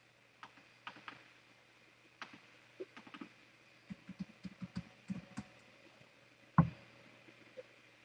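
A cat licking herself: a run of soft wet clicks and smacks, quickening to about five a second midway, then one sharp thump about six and a half seconds in as she shifts her body on the blanket.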